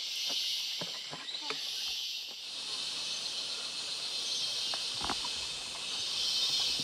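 Tropical insect chorus: a high, steady hiss that swells and fades every couple of seconds, with a few faint clicks.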